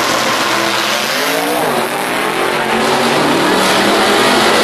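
1968 Pontiac GTO drag car's engine running loud as the car rolls forward, its pitch dipping and rising about two seconds in and growing louder near the end, over a steady hiss.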